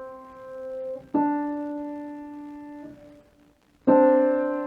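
Piano playing an ear-training interval: one note rings and fades, a second note a little higher is struck about a second in, and near the end the two are struck together as a chord.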